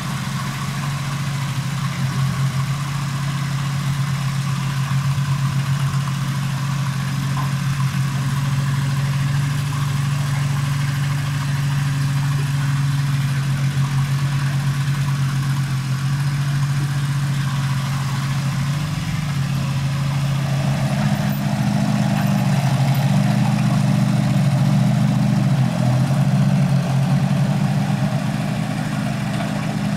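Mini excavator's engine running steadily while it digs. About twenty seconds in, the engine note changes and grows a little louder and rougher.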